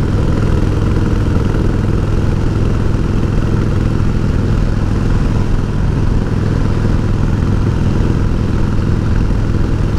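1988 Harley-Davidson Heritage Softail's 1340 cc Evolution V-twin running steadily while riding along at an even speed.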